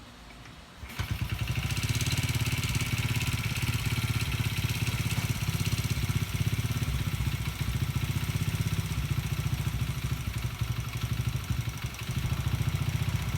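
Single-cylinder four-stroke overhead-cam engine of a 1978 Honda Z50A minibike, bored out to 88cc, comes in suddenly about a second in and runs steadily with rapid even firing pulses. It is running cleanly after its carburettor floats were set lower to cure rich running and flooding at start-up.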